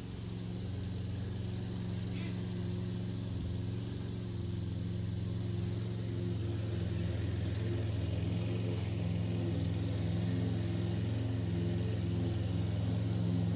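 Toro Recycler push mower's Briggs & Stratton engine running steadily under load as it cuts tall grass with the bagger fitted, growing slightly louder toward the end.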